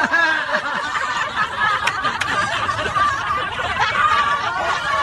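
A group of people laughing and snickering together.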